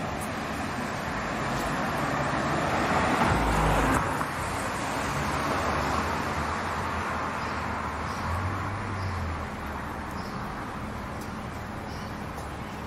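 Street traffic: a car drives past, loudest about three to four seconds in, over a steady hum of town traffic.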